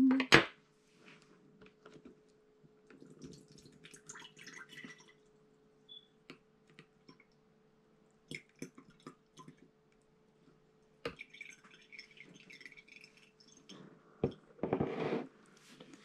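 Kitchen utensils being handled: a sharp clack of a spoon set down on a wooden table right at the start, then scattered light clinks, taps and scrapes of a spoon against a metal strainer and glass as onion-honey syrup is strained into a glass jar.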